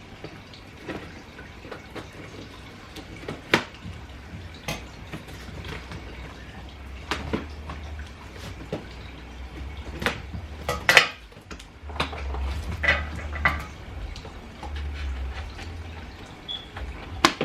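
Scattered clicks, taps and knocks from a boxed toy RC car and its packaging being handled, over low handling rumble.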